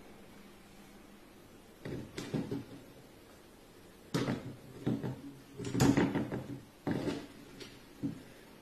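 A frying pan scraping and rattling on a tabletop as it spins when a cat bats it, in several short bursts, the loudest about six seconds in.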